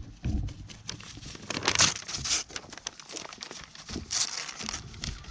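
Paper crinkling and tearing as a goat grabs a paper sign in its mouth and chews it, in two louder spells about a second and a half in and again near four seconds.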